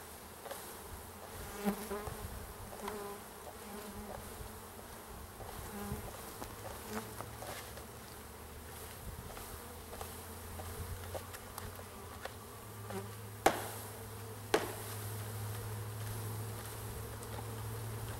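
Mass of package honey bees buzzing in a steady low hum as they are put into the hive, the hum growing louder about two-thirds of the way through. Two sharp knocks come a second apart just before it swells.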